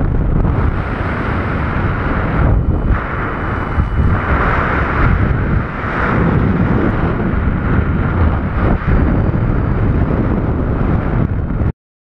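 Loud, gusty wind buffeting the microphone of a paraglider pilot's camera in flight, a rushing noise that swells and dips. It cuts off abruptly near the end.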